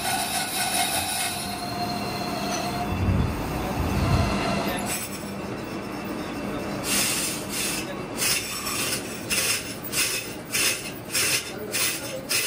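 Metalworking noise from crankshaft machining and finishing: a steady squealing tone of metal on metal for the first few seconds, two low thumps, then regular stroking noise about twice a second.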